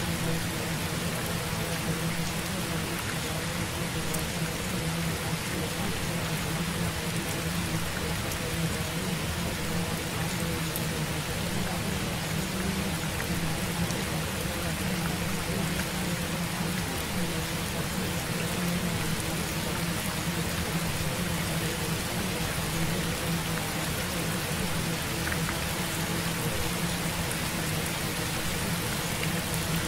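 Steady rain-like hiss with a faint low hum beneath it, unchanging throughout: the audio bed of a subliminal track, with spoken affirmations layered under it.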